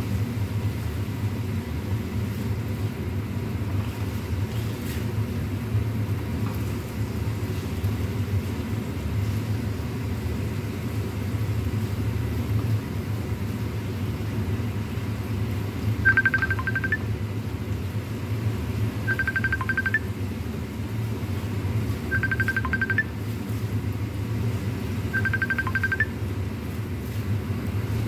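Kitchen range hood fan running with a steady low hum over a pan being stirred on the hob. About halfway through, a phone starts ringing with a short trilling tone, four rings about three seconds apart.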